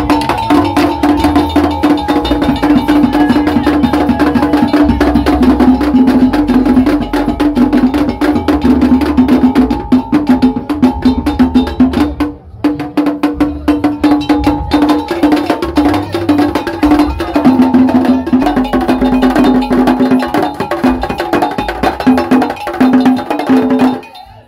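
Traditional Ga ceremonial percussion music: dense, fast clicking strokes like wood blocks over a steady held note. It drops out briefly about halfway through and cuts off suddenly near the end.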